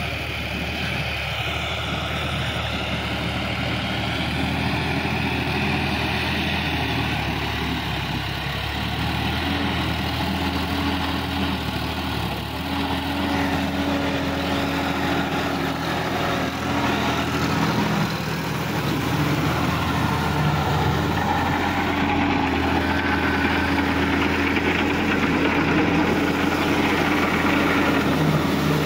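Sonalika DI-50 RX tractor's diesel engine running steadily while it drives a rotary tiller through wet paddy-field mud, growing a little louder in the second half.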